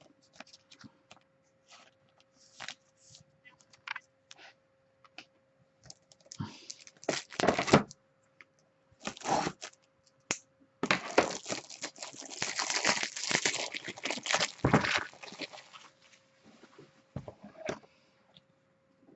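Plastic packaging and trading cards being handled, crinkling and tearing, with scattered light clicks and taps. The longest stretch of crinkling comes a little past the middle. A faint steady hum runs underneath.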